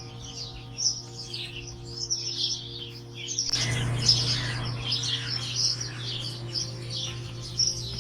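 Many small birds chirping and twittering in quick, overlapping calls over a steady low hum. About halfway through, a rushing noise joins in beneath the birdsong.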